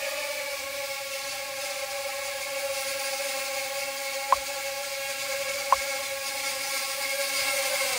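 Mini quadcopter's motors and propellers whining steadily in flight, a high hiss over a held pitch, growing slightly louder toward the end. Two sharp clicks about a second and a half apart cut in midway.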